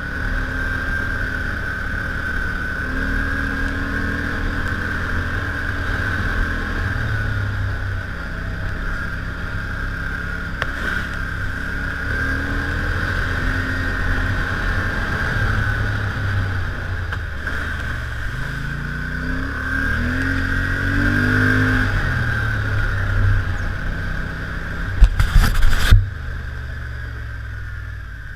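ATV engine running while riding a trail, its pitch rising and falling with the throttle over a steady high whine. A few loud knocks come near the end.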